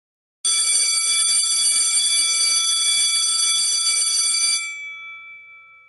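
School bell ringing continuously for about four seconds, then stopping sharply and ringing out for a second or so as it fades.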